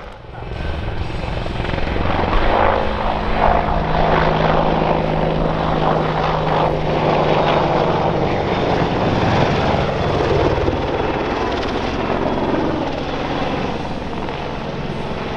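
AH-64D Apache attack helicopter flying past: its twin turboshaft engines and four-blade main rotor make a loud, steady noise. The noise dips at the very start and swells back up over the first two seconds.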